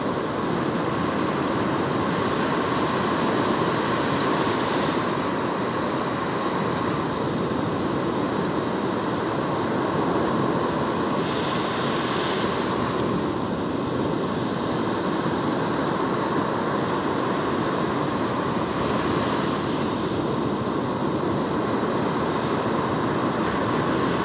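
Rough surf breaking steadily on a sandy beach, with wind blowing across the microphone.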